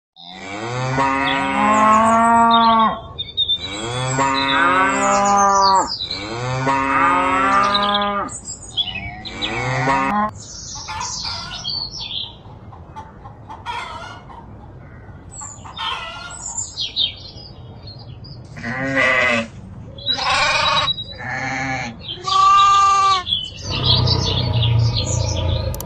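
Farm animals calling: three long, drawn-out calls of about two seconds each, then scattered quieter sounds and a run of shorter calls, with a low rumbling noise coming in near the end.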